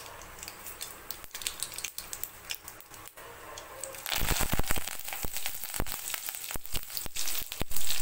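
Hot cooking oil in a kadai ticking and popping lightly. About four seconds in, fresh curry leaves are dropped in and spatter and crackle loudly in the oil.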